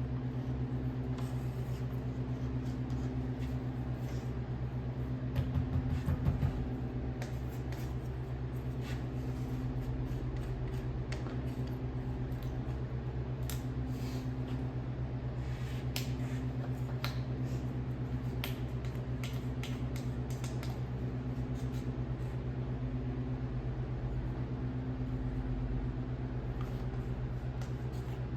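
A portable sawmill's motor running steadily, with light scattered ticks and a brief louder patch about six seconds in.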